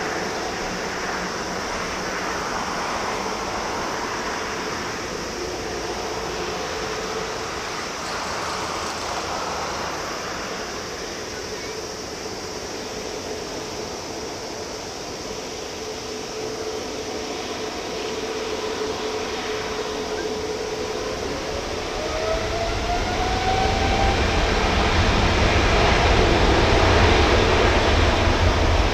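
Boeing 777-200ER's twin GE90 turbofans running at low power with a steady whine while the jet taxis and lines up. About three quarters of the way through they spool up to takeoff thrust, with a rising whine and a growing low rumble as the takeoff roll begins.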